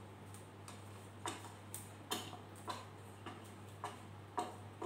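Light, uneven clicks and taps, roughly one every half second, as small plastic toy figures are handled and knocked on a counter, over a faint steady electrical hum.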